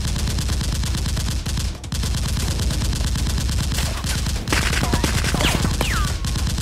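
Dubbed automatic gunfire sound effects: a continuous, rapid fusillade of shots laid over a Nerf blaster firefight, with a couple of falling whines about five seconds in.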